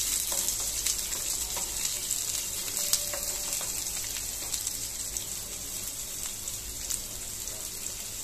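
Onion pieces sizzling in hot oil with cumin seeds in a nonstick frying pan, stirred with a wooden spatula that gives small knocks and scrapes against the pan. The sizzle is loudest at first and slowly eases off.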